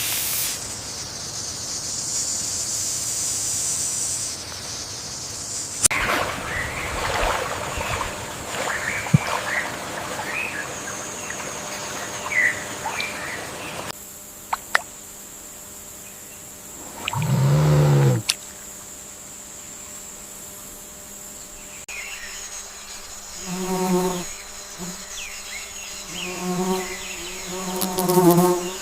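Forest ambience of insects buzzing in a steady high band, with scattered chirping calls in the first half. One loud low call comes just past the middle, and a few shorter low calls from an animal follow near the end.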